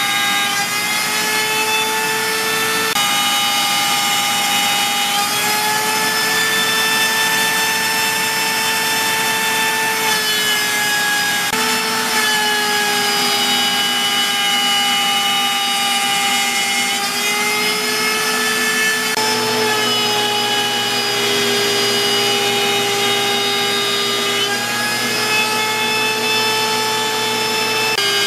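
CNC router cutting slots in a wooden board: the router motor's steady whine shifts up and down in pitch every few seconds as the bit moves through the cut, with a shop vac running for dust collection underneath. A low hum joins about two-thirds of the way through.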